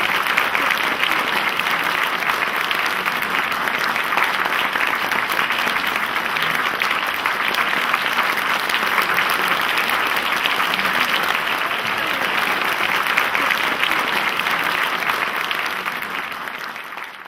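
Large audience applauding steadily, a dense even clapping that fades out near the end.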